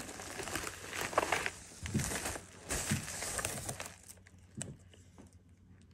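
Packaging crinkling and rustling in a string of bursts as graded card slabs are unwrapped, dying down after about four seconds.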